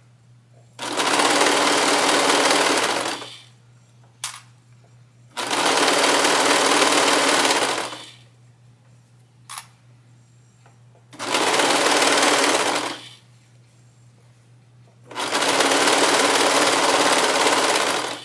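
Brother serger (overlock machine) running in four bursts of two to three seconds each, stitching and knife-trimming the edge of a double layer of microfiber fabric. It stops between bursts while the fabric is adjusted, with a short click in two of the pauses.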